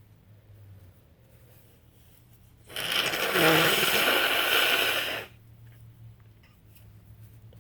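A woman blowing her nose hard into a tissue while she has a head cold: one long, loud blow of about two and a half seconds, starting a little under three seconds in.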